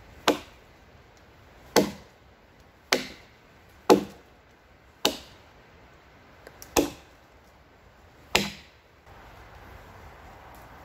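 A hatchet chopping into a wooden pole: seven single blows at an uneven pace of about one a second.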